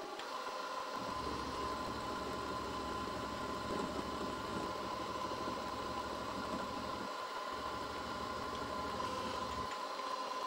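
Milling machine running with a steady whine, its spindle turning a countersink bit that chamfers the edges of V-blocks.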